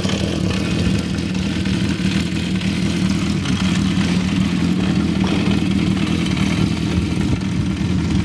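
1972 Honda CB350 Four's air-cooled inline four-cylinder engine idling steadily.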